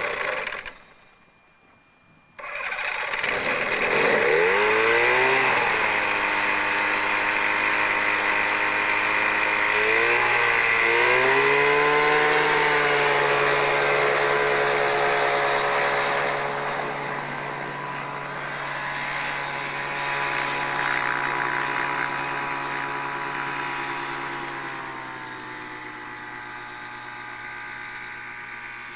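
Pegasus Cyclone AX2000 microlight's Rotax 503 two-stroke engine and propeller running on the ground. After a short break near the start it revs up a few seconds in and again around ten seconds, then holds a steady drone. It drops slightly in pitch and fades as the aircraft taxis away.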